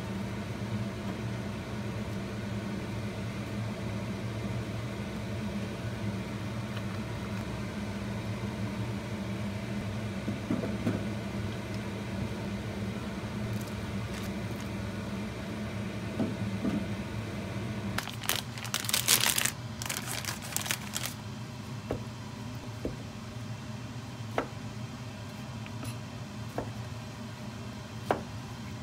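Steady low mechanical hum of a kitchen appliance running. About two-thirds through comes a brief burst of rustling and clatter, then a knife knocks now and then on a plastic cutting board as fish cake sheets are sliced.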